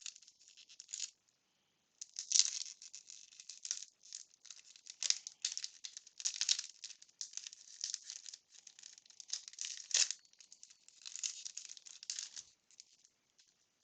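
Waxed-paper baseball card pack being opened and its cards handled: irregular crinkling and rustling of the wax wrapper and card stock, in short uneven bursts.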